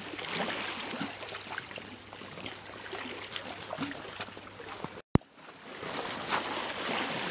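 Sea water sloshing and lapping against the rocks close to the microphone, with small splashes and trickles. About five seconds in, the sound drops out for a moment and there is a single sharp click.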